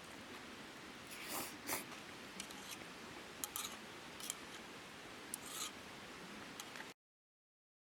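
Short scrapes and clicks, several of them spread over a steady hiss; the sound cuts off abruptly about seven seconds in.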